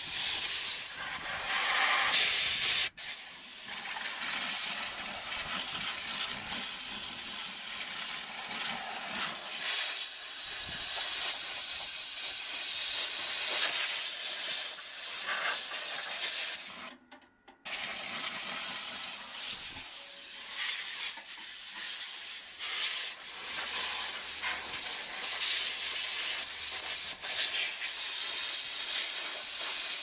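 Compressed air hissing from a blow-gun nozzle, blowing dust out of a microwave oven's vents and cavity; the stream stops briefly twice.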